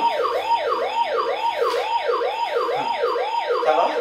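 Electronic siren sound effect from a children's battery-powered ride-on bike's toy speaker: a fast rising-and-falling wail, about two and a half cycles a second, repeating steadily.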